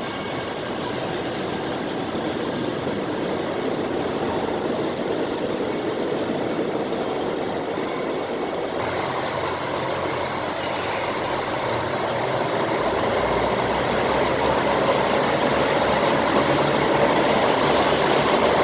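A train approaching along the station platform: a steady rumble that slowly grows louder, with thin high whining tones and a low hum joining about halfway through.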